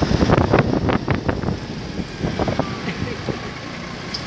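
Wind noise on the phone's microphone by an open roadside, loudest in the first second and a half and easing after that.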